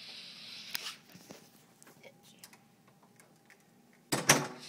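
Handling and movement noise: a brief rustle, scattered small clicks and taps, then a short loud clatter near the end.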